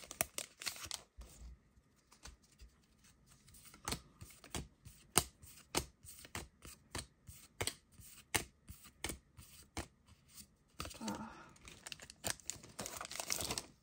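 Trading cards being flipped through one at a time, each card sliding off the stack with a short click, roughly one or two a second. Foil booster-pack wrapper tearing and crinkling at the start and again near the end.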